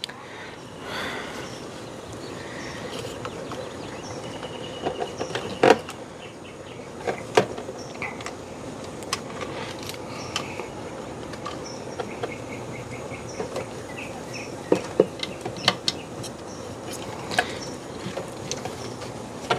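Scattered light clicks and knocks of plastic fuel pump parts being handled and fitted into the pump basket, over a steady background hiss, with a few faint high chirps.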